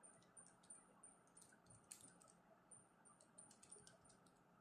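Faint, irregular clicks of calculator keys being pressed, several a second, as a calculation is keyed in.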